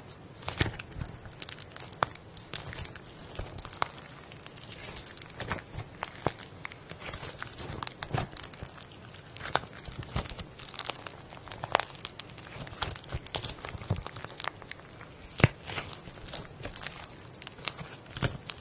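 Slime being squeezed and stretched by hand, giving irregular sticky crackles, clicks and pops.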